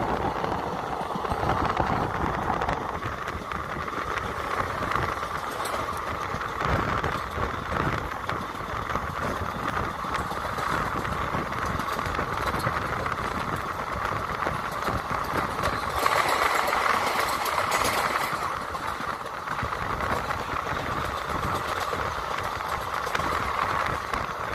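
Passenger train running at speed, heard from an open coach door: steady rumble of wheels on rail, with wind buffeting the microphone. About two-thirds through it grows louder and brighter for a couple of seconds.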